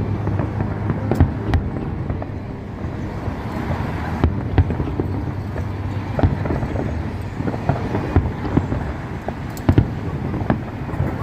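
Aerial fireworks bursting at a distance: irregular sharp bangs and crackling pops, the biggest about a second in, near the middle and near the end, over a steady low rumble.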